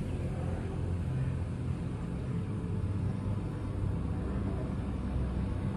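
A steady low rumble, with no level-crossing bell ringing.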